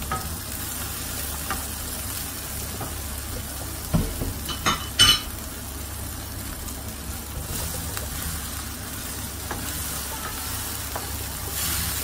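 Freshly added chopped tomatoes sizzling in oil with fried onions and spices in a frying pan, stirred with a wooden spatula. A few sharp knocks about four to five seconds in are the loudest sounds.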